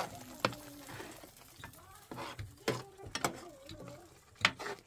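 Metal ladle stirring a thick tomato sauce in a metal pot, clinking and scraping against the pot several times at irregular intervals.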